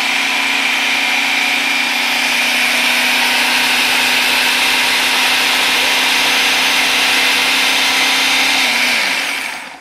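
Food processor motor running steadily as its blade purées chopped strawberries, then switched off near the end, its pitch falling as it winds down.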